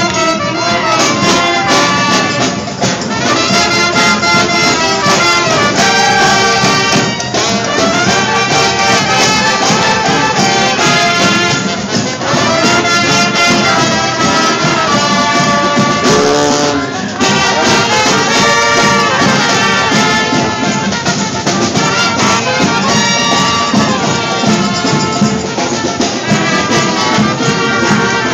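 Street brass band of trumpets, saxophones and other horns playing a tune together, loud and continuous.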